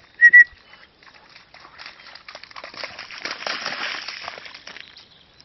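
A Tamaskan dog digging in a wet, muddy ditch, paws scrabbling and throwing mud, building to its loudest three to four seconds in and easing off near the end. Just before that, two short, loud high chirps come close together.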